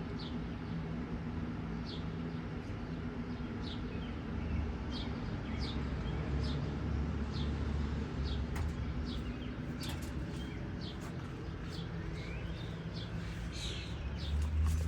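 A bird giving a short, high, downward-sliding chirp over and over, about once a second, over a steady low rumble, with a few faint sharp clicks in the second half.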